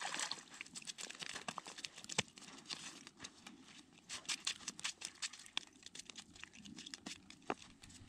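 Crunching and crackling of snow underfoot and rustling clothing as a person shifts and pulls fishing line up by hand on snowy ice: a dense run of quick, irregular crackles that starts abruptly.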